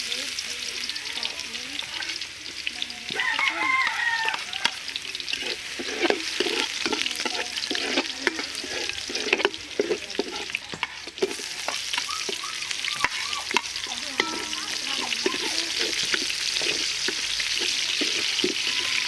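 Food sizzling as it fries in a pan, with a utensil clicking against the pan as it is stirred.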